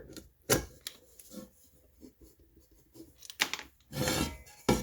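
Loose riveted handle on an aluminum frying pan being worked back and forth, giving a few sharp clicks and knocks and a short scrape. The rivets holding the handle bracket have worked loose.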